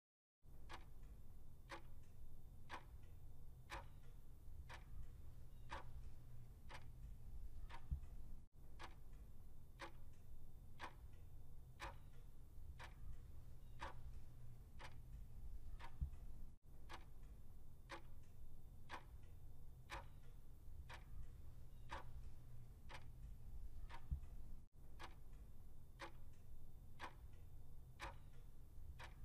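Clock-ticking sound effect counting down a quiz timer: a steady tick-tock, a little more than one tick a second, over a low steady hum. It has brief dropouts about every eight seconds.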